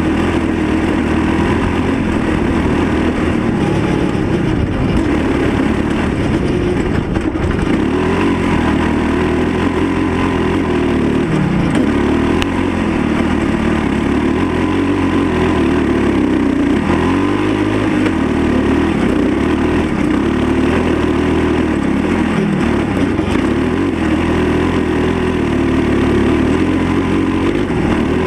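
Kawasaki KLR650 single-cylinder four-stroke engine of a tube-frame buggy, heard on board while driving on a dirt track, its pitch rising and falling as the throttle is opened and eased off.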